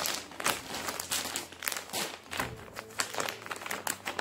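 Clear plastic packaging bags crinkling and crackling as hands handle them, a dense run of irregular crackles.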